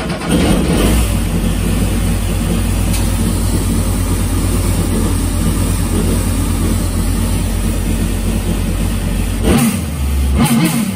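Supercharged four-stroke jet-ski engine in a mini jet boat, running steadily just after start-up with a low, even pulse. About nine and a half seconds in, the sound breaks up unevenly for a second or so, then settles back into a steady run.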